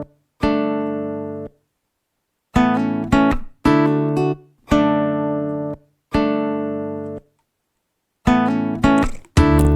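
Background music: acoustic guitar chords, each struck and left to ring out, with brief silent gaps between them and quicker chords near the end.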